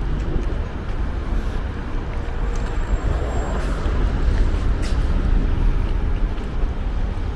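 Street traffic noise: a steady rumble of road vehicles, with a few faint ticks.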